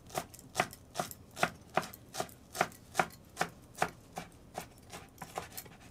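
Chef's knife chopping fresh coriander on a wooden cutting board: a steady run of sharp knocks, about two and a half a second.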